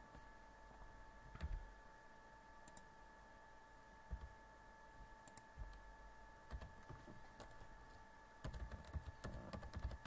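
Faint computer keyboard typing: a few scattered clicks, then a quick run of keystrokes in the last second and a half as a net label name is typed. A faint steady hum lies under it.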